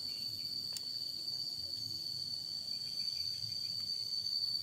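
A cricket trilling steadily on one high note. There is a faint click, like wires being handled, just under a second in.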